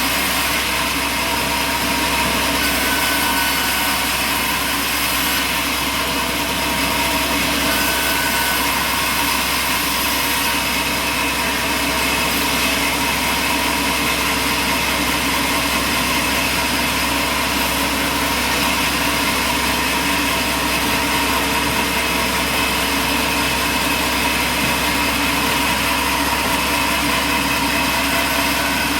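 Heavy machinery running steadily: a constant mechanical drone with a few faint steady whining tones, unchanging throughout.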